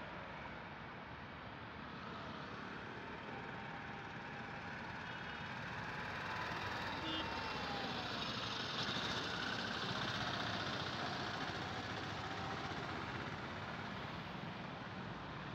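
Road traffic passing close by: cars, an auto-rickshaw and motorcycles driving past in a steady wash of engine and tyre noise that swells in the middle as vehicles go by nearer.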